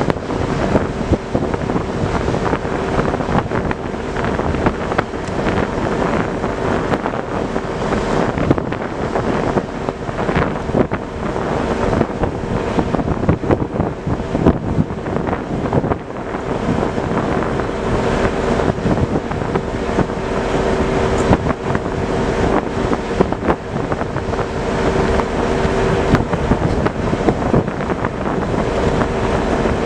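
Wind buffeting the microphone, with the steady hum of a river cargo ship's diesel engine underneath.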